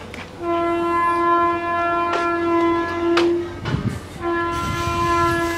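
A horn sounds two long, steady blasts at one pitch, each about three seconds, with a short break between them.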